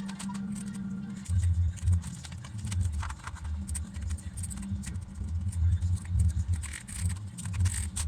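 Keys of a mechanical keyboard clicking in quick, irregular strokes as it is typed on, over a low pulsing rumble that comes in about a second in.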